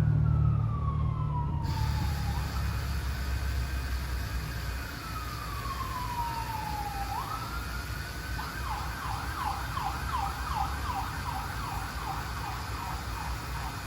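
Emergency vehicle siren: two long falling wails, then a switch about eight and a half seconds in to a fast yelp that repeats about two or three times a second, over a steady low rumble.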